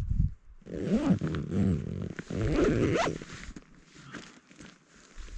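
Bivy sack zipper being pulled closed from inside, a zip of about two and a half seconds that rises in pitch at its end. Softer fabric rustling follows.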